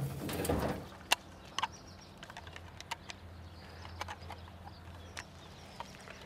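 Work shoes shifting on gravel at first, then scattered small sharp clicks and taps of a red power plug and a screwdriver being handled, about six or seven spread over several seconds.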